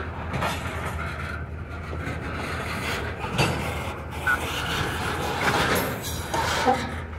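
Diesel locomotive running steadily with rail cars rolling over the track, and a sharp knock about three and a half seconds in.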